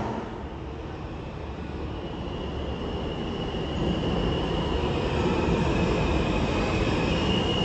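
R160 subway train rumbling in on the far track, its noise building steadily over the first few seconds, with a thin high whine that comes in about two seconds in and grows stronger near the end.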